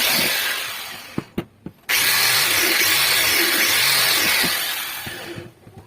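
A power tool used in rust removal runs with a steady hiss, then runs down over about a second. A few sharp clicks follow. It starts again abruptly and runs steadily for about three seconds before trailing off.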